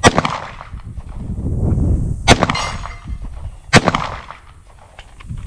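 Three handgun shots, about two and a half seconds then a second and a half apart, each followed by a short metallic ring from the steel target being hit.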